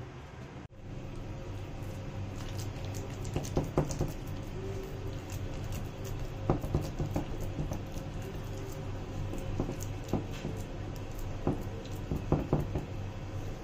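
A hand kneading and squeezing a thick mixture of shredded vegetables and flour in a steel bowl, making irregular soft wet clicks and pats, with a steady low hum underneath.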